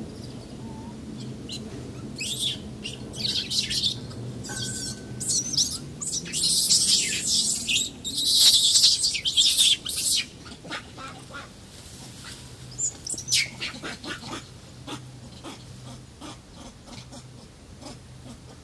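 Rhesus macaque, most likely the infant being held by an adult, screaming in a run of harsh, shrill bursts that grow loudest about halfway through, then trail off into a few short, fainter squeals.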